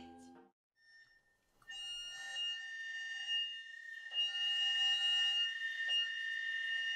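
Mallet-percussion music fades out, then after a short near-silence a steady, high-pitched electronic drone of two held tones sets in at about two seconds, alarm-like, from a live experimental electronics and turntable rig.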